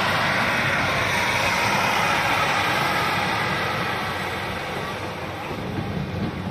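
Class 156 two-car diesel multiple unit passing close by and pulling away. The rush of its engines and wheels on the rails is loudest in the first few seconds and fades from about four seconds in.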